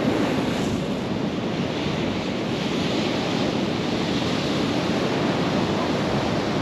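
Steady wash of ocean surf, with wind on the microphone.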